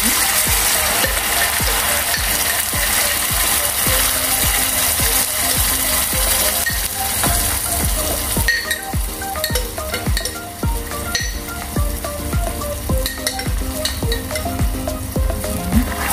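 Tomato paste sizzling as it fries in hot oil with chopped garlic in a small saucepan. The sizzle is loudest in the first half and eases after about eight seconds, when a metal spoon stirring the pan adds clicks and scrapes.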